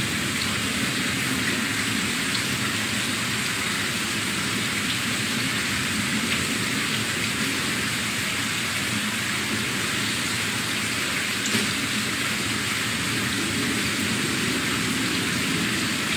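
A steady, even hiss that does not change throughout, with no speech.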